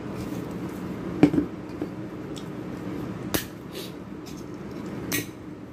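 Sharp clicks of a Mirinda aluminium soda can's pull tab being worked open, the loudest two about two seconds apart, over a steady low hum.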